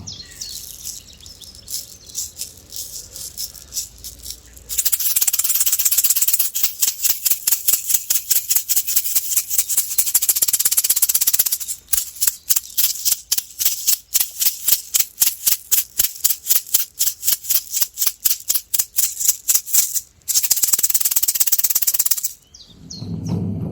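Horse-skin shaman rattle being shaken. It starts soft, then about five seconds in becomes a fast continuous rattle. It settles into steady beats about four a second, then after a brief pause ends in a final burst of fast shaking.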